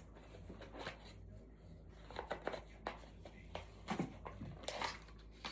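Faint rustling and a few light clicks and taps as gift packaging and small items are handled and unwrapped, over a low steady room hum.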